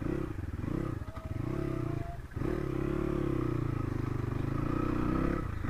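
Crossfire RM250 dirt bike's single-cylinder four-stroke engine running at low speed on a rough dirt track. The engine note wavers, drops briefly just after two seconds in as the throttle eases, then picks up and runs steadily.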